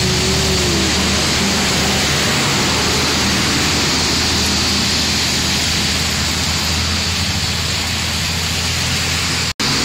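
Heavy rain falling steadily, with vehicle engines running and traffic passing on the wet highway. The sound drops out for a moment near the end.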